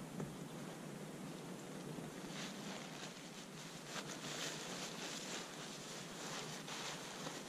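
A tarp rustling as it is gathered and folded by hand, with soft, irregular crinkles that start about two seconds in, over a steady faint hiss.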